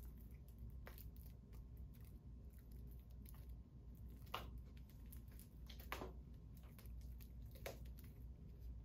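Clear plastic shrink wrap being peeled off a 4K Blu-ray case, with faint rustling and three sharper clicks, roughly a second and a half apart, in the second half.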